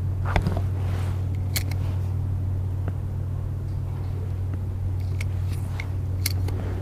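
A steady low hum, with a few sharp clicks scattered through it.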